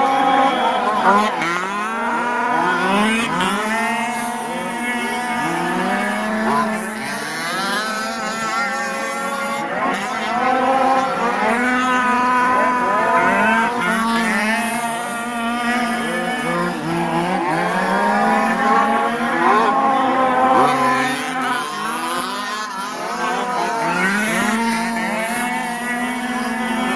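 Several quarter-scale radio-controlled race cars' small two-stroke petrol engines running together, revving up and easing off as they lap, their pitches rising and falling and overlapping.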